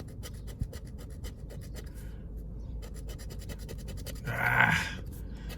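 A scratch-off lottery ticket being scratched in quick short strokes, about ten a second, pausing briefly about two seconds in. Near the end comes a brief hum from a person.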